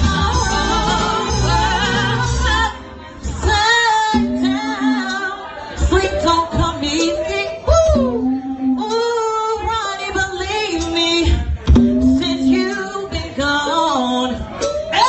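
Female singer performing an R&B song over instrumental backing, her voice sliding up and down through runs and held notes. The backing drops out briefly about three seconds in.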